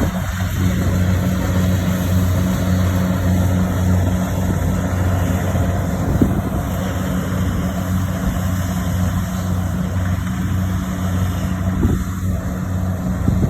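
Rice harvester's engine running steadily at a constant speed, a loud, even hum, with a few brief knocks from the machinery.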